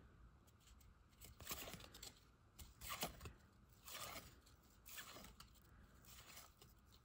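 Faint, soft swishes of cardboard trading cards sliding across one another as a stack of Upper Deck hockey cards is flipped through by hand, about once a second.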